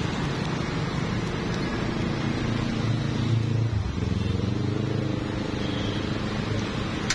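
Motor vehicle engine running close by, louder with its pitch shifting in the middle, over a steady hiss.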